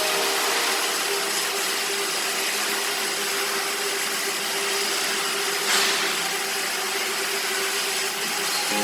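Flux-cored arc welding: a steady crackling hiss from the arc, with a brief louder swell about six seconds in.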